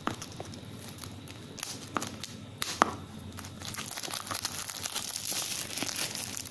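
Clear plastic shrink-wrap being torn and peeled off a cylindrical product box, crinkling and crackling. A few sharp snaps come in the first three seconds, then the crinkling grows denser.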